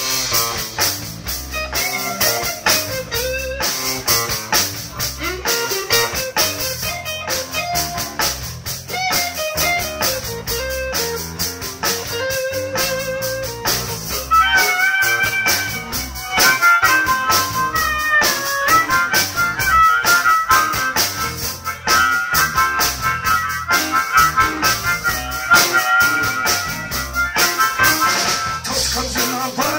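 Live blues band playing: electric bass, electric guitar and drum kit keeping a steady beat, with a harmonica wailing held, bending notes from about halfway through.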